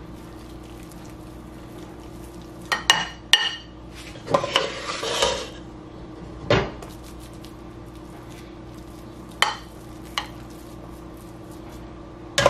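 A spoon clinking and scraping against a glass baking dish as a mashed cheesy potato mixture is spread and smoothed: a few separate sharp clinks and one longer scrape, over a steady low hum.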